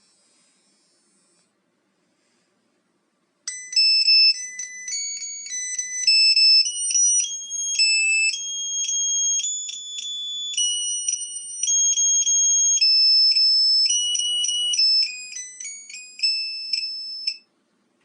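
Car alarm key fob's piezo beeper playing an electronic melody. It is a tune of short, shrill beep notes that step between pitches. It starts about three and a half seconds in and cuts off about a second before the end.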